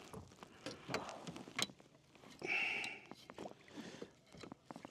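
Scattered knocks and clicks on a fishing kayak as a bass is brought in with a landing net, with a brief rush of noise about two and a half seconds in.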